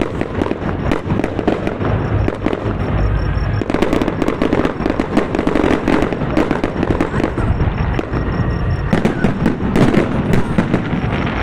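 Fireworks finale: a traca, a dense, unbroken barrage of firecracker and firework bangs going off in rapid succession.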